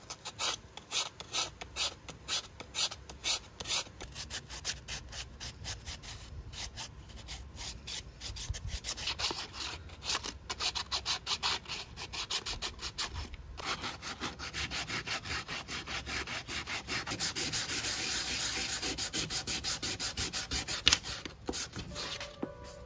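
Sandpaper rubbed by hand over hardened air-dry clay coasters in quick, short back-and-forth strokes, with a few brief pauses. The strokes grow louder and denser in the second half and stop shortly before the end.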